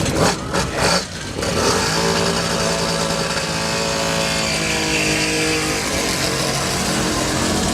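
A car engine running at a steady pitch for about four seconds, then fading out, with a few short sharp sounds just before it.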